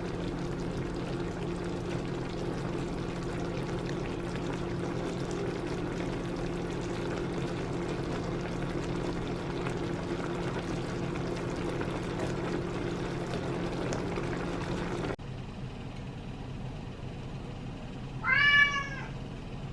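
A steady low hum that cuts off suddenly about fifteen seconds in, then a domestic cat meowing once near the end, a short call that rises and falls in pitch.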